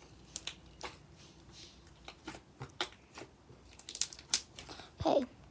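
Slime being squished and poked by hand, giving a string of small irregular clicks and pops.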